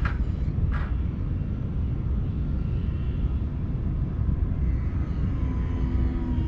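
Steady low rumble with two light clicks about a second apart at the start; near the end a faint engine whine comes in, slowly falling in pitch, typical of an aircraft.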